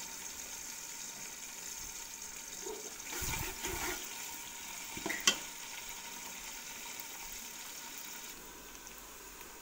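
Sliced onions sizzling in hot oil in a steel pot, with a steady hiss. About three seconds in, a slotted steel spoon scrapes and stirs them, and a second or so later there is one sharp metallic clink of the spoon on the pot.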